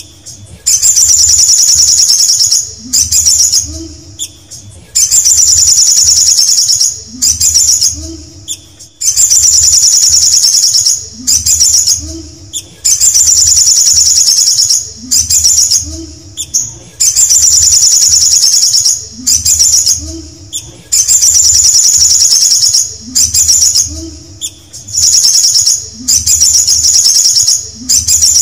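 Male olive-backed sunbird singing: a loud, fast, high-pitched trilling phrase one and a half to two seconds long, repeated every two to three seconds with short pauses between.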